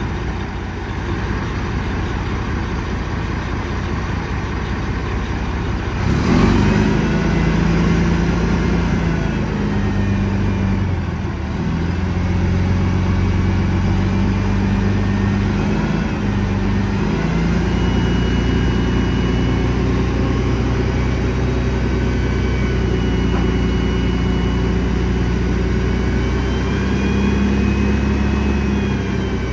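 Diesel engine of a semi tractor idling, then rising in speed and level with a sudden onset about six seconds in. It holds higher revs, stepping up and down, to drive the hydraulic hoist that raises the end-dump trailer's bed. A thin high whine comes and goes in the second half.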